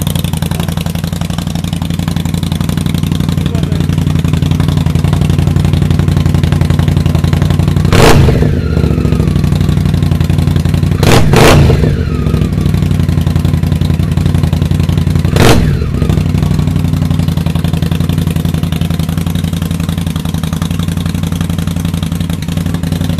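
2015 Indian Scout's liquid-cooled V-twin idling through a full Vance & Hines Hi-Output Grenades exhaust system, with short throttle blips about eight seconds in, a quick double blip around eleven seconds, and one more around fifteen seconds.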